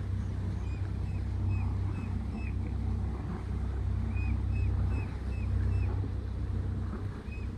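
A boat engine running steadily with a low hum, and over it high, short bird chirps repeating about twice a second in short runs.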